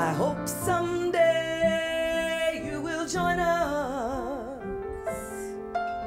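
A woman singing live into a microphone: a long held note about a second in, then a slow falling run with wide vibrato, over soft instrumental accompaniment.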